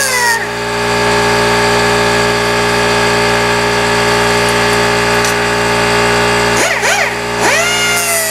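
Quarter-inch air die grinder with a cutoff wheel running at high speed, cutting through a tapered roller bearing's cage on a Dana 44 differential carrier. Its whine holds steady, wavers about seven seconds in, then jumps back up and sags slowly as the wheel bears into the metal.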